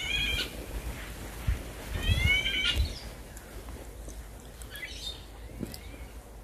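A wild songbird calling: a burst of quick rising chirps at the start and another about two seconds in, with fainter high calls later, over a low rumble.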